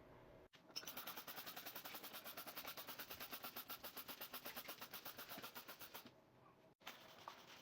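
A rapid, even run of clicks, about ten a second, lasting about five seconds.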